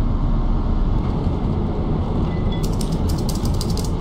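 Steady low drone of an airliner cabin in flight. In the last second and a half, the crinkling of a plastic bag of dog food being opened.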